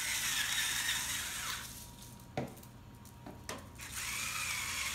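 Battery-powered electric salt-and-pepper grinder running in two spells, with a high motor whine over the gritty hiss of grinding. The first lasts about a second and a half. The second starts about four seconds in.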